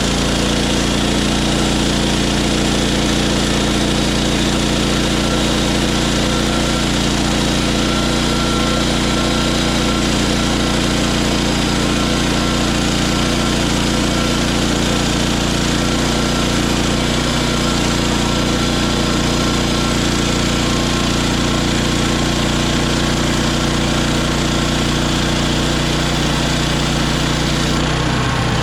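Hudson HFE30 bandsaw sawmill running steadily under power, its engine at speed as the band blade cuts through a tulip poplar log. Just before the end the high hiss drops away and the engine note changes.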